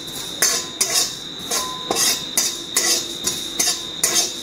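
Spatula scraping and knocking against a pan, about two strokes a second, stirring cumin and coriander seeds as they dry-roast.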